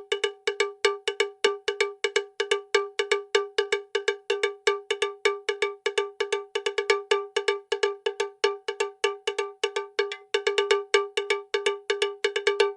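One clear, pitched note, the same pitch each time, struck over and over in quick succession, about five or six strikes a second in a steady rhythm.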